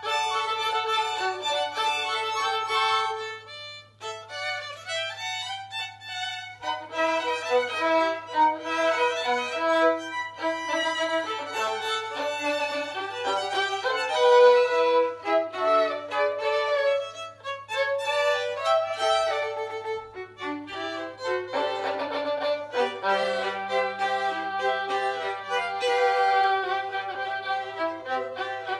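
Classical chamber music led by violins, several parts playing together, with a low sustained note held near the end.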